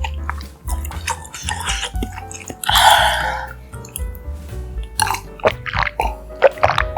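Close-miked eating sounds, wet mouth noises and chewing clicks, over background music, with one loud, noisy mouth sound about three seconds in.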